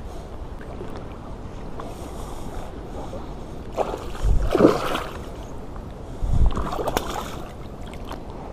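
A large pike thrashing and splashing at the surface on a line right beside a float tube, in two loud bouts about four and six and a half seconds in, with water lapping close to the microphone in between.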